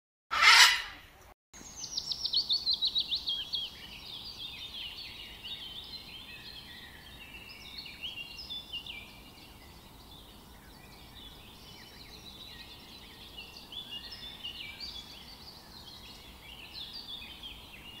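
A loud, harsh bird squawk about half a second in, then a chorus of birds chirping and whistling, opening with a fast run of downward-sliding notes and going on as a dense mix of short, high calls.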